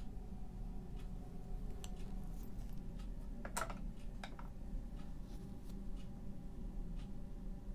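A clock ticking faintly about once a second over a steady low room hum, with two louder short clicks about halfway through.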